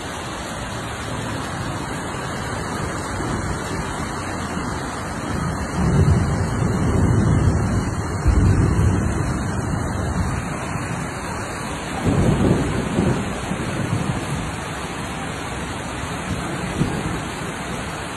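Heavy rain pouring steadily, a constant rush of rain and running water, with louder low rumbles starting about six seconds in and again about twelve seconds in.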